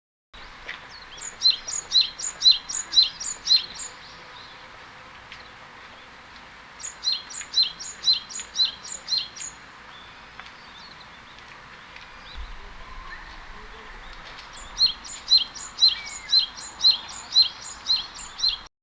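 Male Japanese tit singing its spring song: three bursts of quick, evenly repeated two-part notes, each burst lasting two to four seconds, with pauses of a few seconds between.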